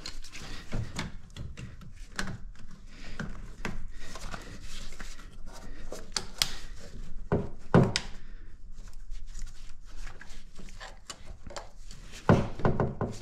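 Scattered clicks, knocks and rubbing as a power steering pump's low-pressure return hose and its clamp are worked back on by hand, with a few louder knocks about halfway through and again near the end.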